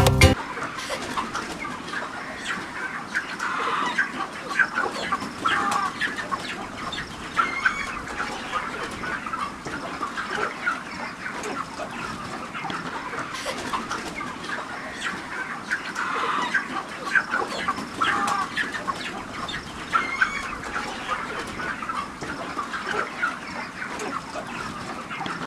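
A flock of broiler chickens calling: many overlapping short clucks and peeps at a steady level, with no pause.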